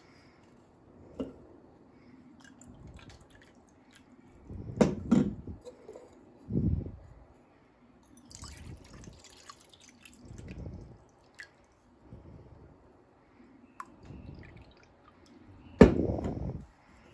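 Water poured from a plastic cup into small metal cups, dribbling and dripping, with a few knocks and clatters as the cups are handled and set on the table. The loudest knock comes near the end.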